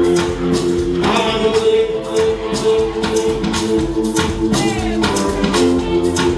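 Loud music played over a sound system, with a steady beat, held tones and a singing voice.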